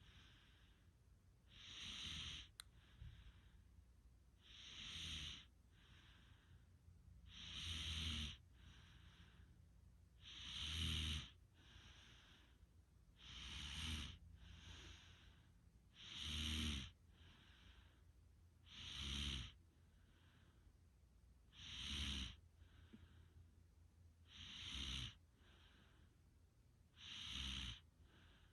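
Soft, slow, regular snoring: about ten snores, one roughly every three seconds, some with a low rattling buzz, each followed by a fainter out-breath.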